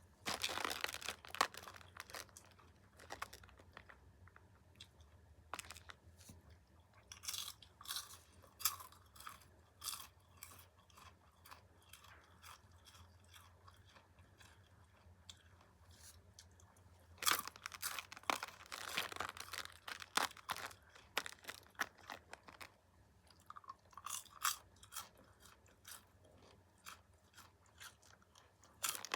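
A person chewing and crunching popcorn close to the microphone: bursts of crisp crunches with quieter chewing between, the loudest bursts near the start and about two-thirds of the way through.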